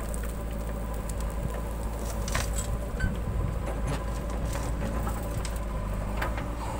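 JCB 3DX backhoe loader's diesel engine running steadily under load while the backhoe swings a bucket of soil over to a tractor trolley and dumps it. A few short clanks and knocks are scattered through the drone.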